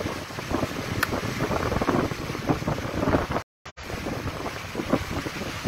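Wind rushing and buffeting over a phone microphone from a moving vehicle, mixed with tyre and water noise from a wet road. The sound cuts out briefly about three and a half seconds in.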